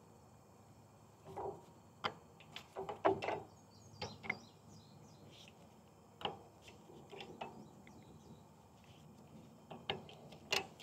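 Faint, irregular clicks and light knocks of metal tools and parts being handled against a brass triplex pressure washer pump manifold as the new check valves are pressed into their seats.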